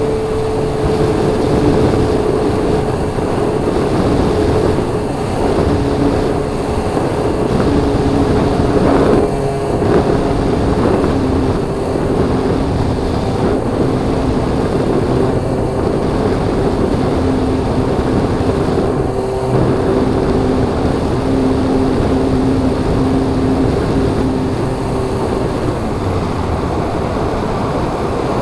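Electric motor and propeller of a radio-controlled model aircraft running steadily in flight, a two-tone whine under a constant rush of wind.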